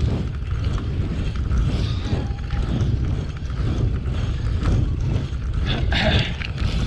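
Wind buffeting the GoPro's microphone with a steady low rumble from the bike's tyres on a tarmac lane while cycling uphill.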